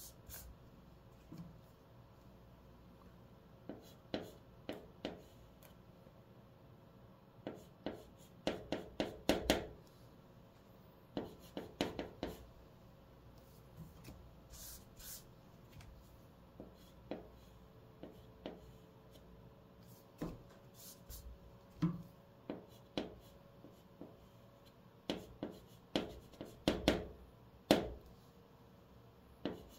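White chalk writing on a green chalkboard: clusters of sharp ticks and short scratches as the strokes hit and drag across the board, with quiet pauses between characters.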